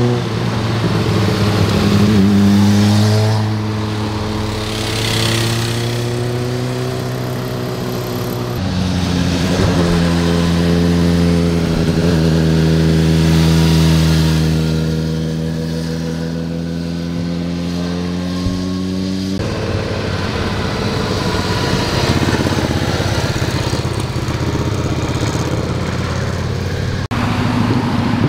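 Motorcycle engines heard as several bikes ride past one after another through hairpin bends, the engine pitch falling and rising as they slow for the curve and accelerate out. The sound changes abruptly a few times as one bike gives way to the next.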